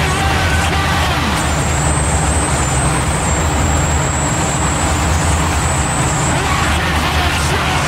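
Power electronics noise track: a loud, unbroken wall of distorted noise over a heavy low rumble. A thin, high whine drops out in the first second or so and again near the end, with faint sliding tones in the middle.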